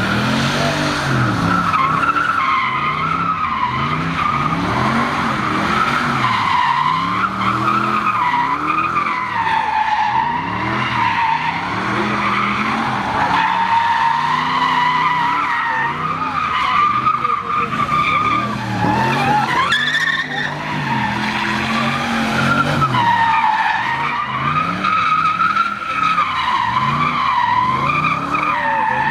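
Pontiac GTO's V8 doing donuts: the rear tyres squeal without a break, wavering in pitch, while the engine revs up and falls back every second or two as the throttle is worked.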